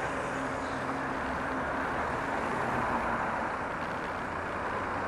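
City bus engine idling steadily, mixed with the hum of street traffic.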